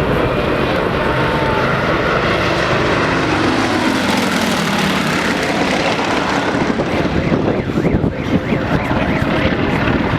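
Propeller airplane flying past, its engine note dropping in pitch as it passes, about four seconds in.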